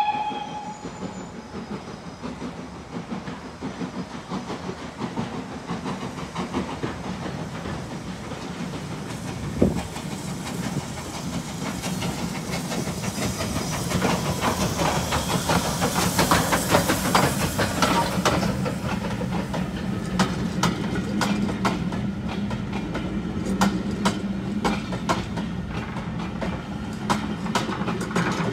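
Steam tank engine BR 47298, an LMS 'Jinty' 0-6-0T, working past with its steam hissing loudest about halfway through. It is followed by its coaches rolling by, their wheels clicking over the rail joints in a steady clickety-clack.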